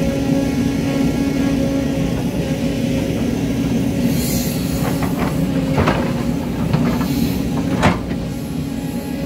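Tracked excavator's diesel engine running steadily while the bucket digs soil and rock; from about five seconds in, several sharp knocks of rock against the steel bucket, the loudest near the end.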